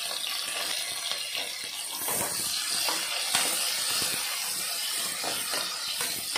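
Sliced onions sizzling as they fry in hot oil in an aluminium pot, stirred with a perforated metal spoon that scrapes and taps against the pot.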